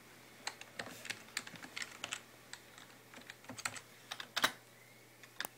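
Keystrokes on a computer keyboard, a string of separate clicks at an uneven pace as a setup password is typed in, with one sharper click about four and a half seconds in.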